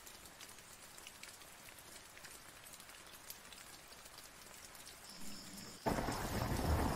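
Rain falling on a nylon tarp shelter: a faint hiss with scattered drops tapping on the fabric. About six seconds in, a much louder, deep rushing noise cuts in suddenly.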